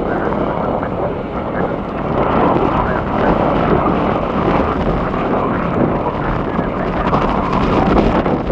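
Steady loud rush of jet aircraft noise, swelling slightly toward the end.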